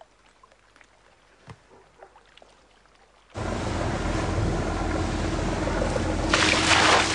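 Near silence with one faint knock, then, about three seconds in, the steady hum of a motorboat engine and the rush of water along the hull start abruptly. Near the end a brief, louder splash breaks over it.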